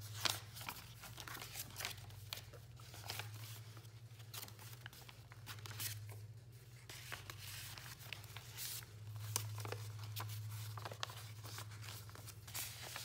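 Paper pages, fold-outs and cards of a handmade journal being opened and turned by hand, with irregular rustling, crinkling and soft flaps of heavy paper.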